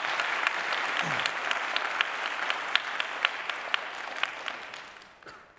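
Audience applauding in a large hall, individual claps standing out in the crowd's clapping; the applause thins and dies away near the end.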